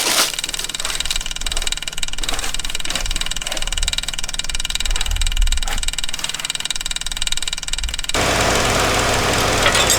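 Electric fuel pump on a tractor running steadily with an even mechanical hum, mixed with scattered clicks and handling knocks. About 8 seconds in, a louder, even rushing hiss comes in abruptly.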